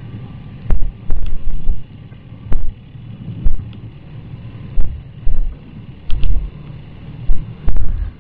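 Wind buffeting the microphone of a riding motorcyclist in irregular loud gusts, over a steady low road-and-engine rumble.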